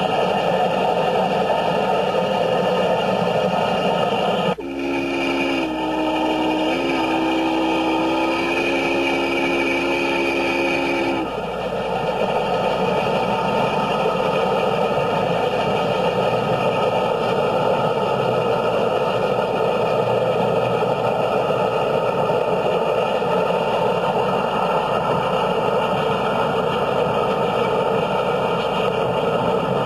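Steam locomotive chime whistle blowing one long chord of several tones for about seven seconds, starting about four and a half seconds in, with a slight shift in pitch partway through. Under it, a steady rushing noise of the train at speed, heard from a car pacing it.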